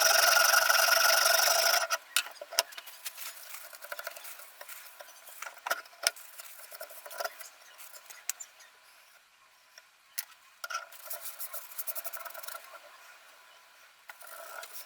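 Sharpening stone rasping along a steel kitchen-knife blade in a Ruixin Pro RX-008 guided sharpener: irregular scraping strokes with sharp clicks of stone and rod against the frame. For the first two seconds a loud steady noise with a few held tones plays, then cuts off suddenly.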